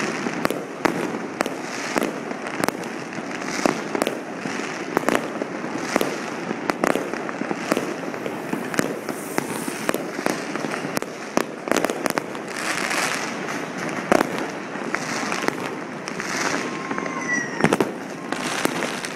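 Many fireworks going off at once: a dense, irregular run of sharp bangs over continuous crackling, with a brief falling whistle near the end.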